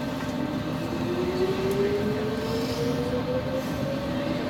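Stockholm Metro C14 train accelerating out of a station: its electric traction drive whines in a single tone that climbs steadily in pitch, over the steady rumble of the running train.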